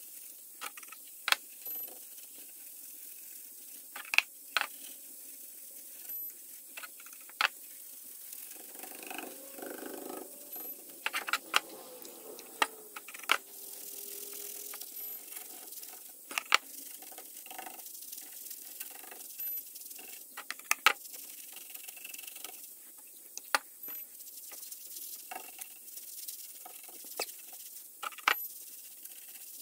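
Irregular sharp clicks and light taps from a brush and hands working over a eucalyptus burl bowl mounted on a lathe, over a low steady hiss.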